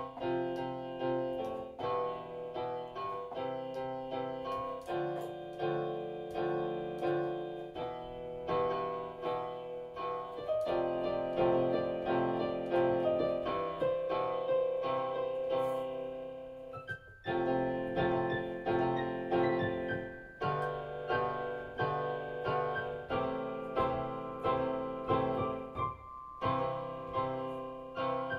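Solo piano music with a steady pulse of struck chords and melody notes; it breaks off briefly just past halfway.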